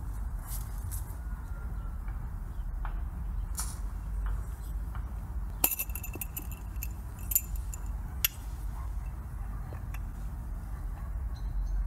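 A few sharp clinks with a brief ring, the first about halfway through and two more over the next three seconds, among scattered small clicks over a steady low rumble.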